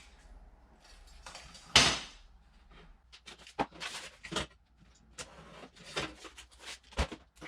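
Foil-backed butyl sound-deadening mat being cut and handled: one louder noisy rasp about two seconds in, then a run of short crinkles and clicks.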